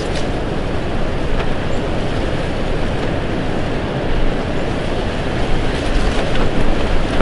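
Strong wind buffeting the microphone: a loud, steady low rumble and rush, with a few faint clicks.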